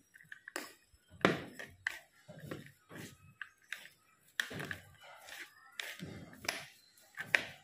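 Wooden chopsticks and a spoon tossing shredded green papaya in a bowl: irregular taps and knocks of the utensils against the bowl as the shreds are mixed.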